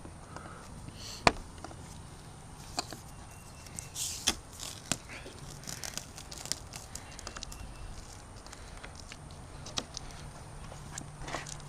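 Scattered light clicks, taps and rustles of hand tools and trim being handled on the car, with one sharper click about a second in and a brief scraping rustle around four seconds in.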